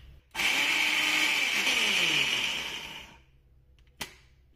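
Kenwood food processor's glass mini chopper attachment running, pureeing blanched spinach leaves into a paste; the motor starts about a third of a second in and winds down to a stop after about three seconds. A single sharp click follows about four seconds in.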